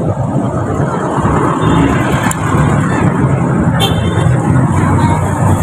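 Steady, loud hum and rumble of road vehicle noise, with a brief sharp click about four seconds in.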